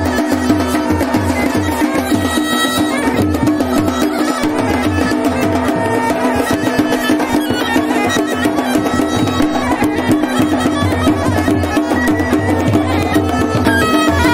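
Kumaoni masak been (bagpipe) playing a folk tune over its steady drone, with a drum beating a regular rhythm along with it.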